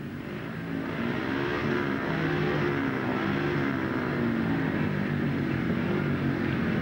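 Speedway motorcycles' 500 cc single-cylinder methanol engines running and being revved at the start line. The sound grows louder over the first second, then holds steady.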